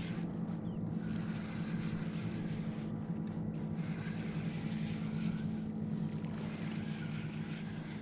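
A boat motor running steadily, a low even drone that holds the same pitch throughout.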